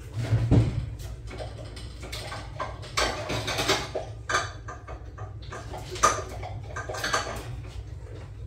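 Off-camera kitchen handling noises: scattered rustles and light knocks over a steady low hum.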